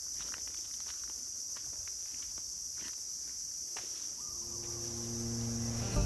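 Steady high-pitched drone of tropical insects, with scattered light clicks and crunches of footsteps on dry litter and twigs.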